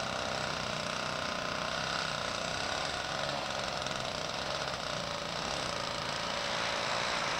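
Walk-behind snowblower's small gasoline engine running steadily as it throws snow.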